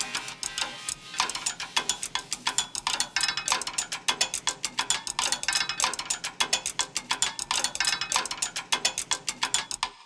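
Drumsticks tapping plastic igus energy chains (cable carriers) and machine parts, several layered tracks forming a fast, even percussion rhythm of clicks and rattles. It stops at the end, leaving a brief ringing fade.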